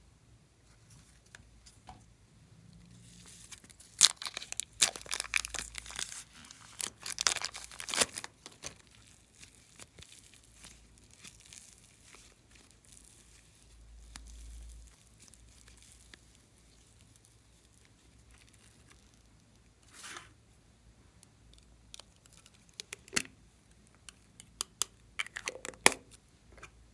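Slime being worked by hand, making bursts of sharp crackling and popping: a dense run about four seconds in, a short one near the twentieth second, and another near the end.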